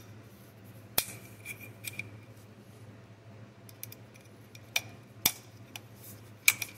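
Sharp metallic clicks and clinks of AR-15 fire control parts, the hammer, its spring and pin, being worked into an aluminium lower receiver by hand. The clicks come irregularly, several in a row about a second in and a few more in the second half, the loudest near the end.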